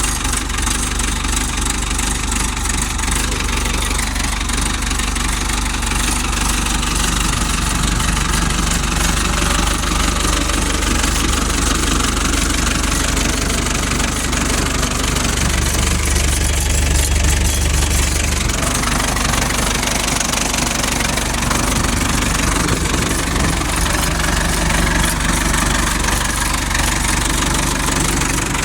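Backhoe engine idling steadily just after a cold start, swelling louder for a few seconds about halfway through before settling back to idle.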